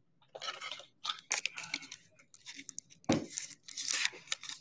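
Trading cards and their plastic wrapping being handled, with a tearing, crinkling sound in short irregular bursts and one louder knock about three seconds in.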